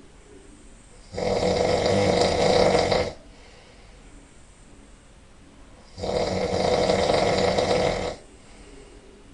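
A person snoring loudly: two long snores, each about two seconds, about five seconds apart, with quiet breathing between them.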